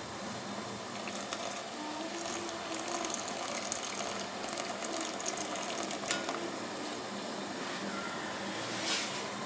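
Tamarind chutney bubbling at the boil in a steel pot, with a crackle of popping bubbles, as jaggery syrup is poured in through a plastic strainer. A sharper click about six seconds in and a short rustle near the end.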